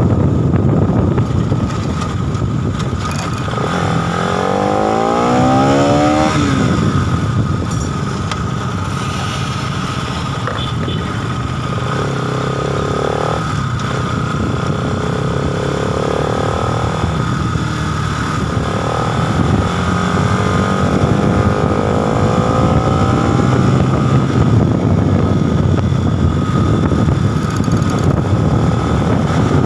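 Bajaj Pulsar NS200's single-cylinder engine and exhaust during a ride, its pitch rising several times as it accelerates through the revs.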